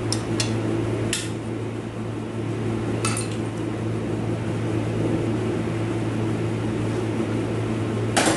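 Small steel transmission parts, the parking pawl pin and spring, clinking and knocking sharply a few times as they are handled, over a steady low hum. Three clinks come in quick succession at the start, one comes around three seconds in, and a louder one comes near the end.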